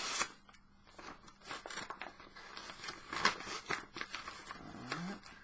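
Cardboard mailer and packing tape being handled and pulled open by hand: irregular rustling, crinkling and tearing, with a sharper rip about three seconds in.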